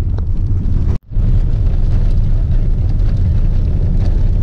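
Steady low rumble of a car's engine and tyres heard from inside the cabin while driving. The sound cuts out for an instant about a second in, then resumes unchanged.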